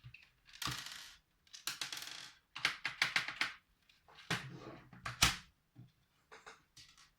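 A screwdriver working screws out of a plastic keyboard case: short scraping bursts and small hard clicks and clinks, with one sharp click about five seconds in.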